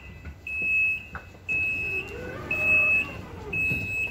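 Train door warning beeper: a high electronic beep about half a second long, repeating about once a second, signalling that the sliding doors are about to close. A fainter lower whine swells and fades in the middle.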